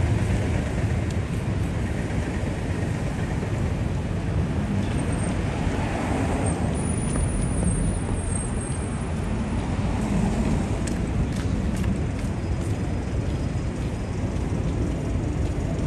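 Steady city street traffic noise from cars and other road vehicles running past, with a faint high-pitched squeal for a few seconds around the middle.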